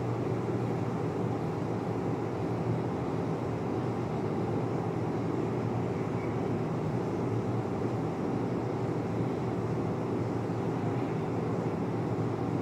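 Steady low rumbling background noise, even and unbroken, with no speech.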